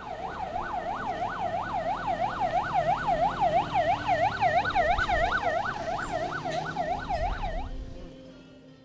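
Emergency-vehicle siren on a fast yelp, its pitch sweeping up and down about three times a second. It stops about a second before the end, leaving a low rumble.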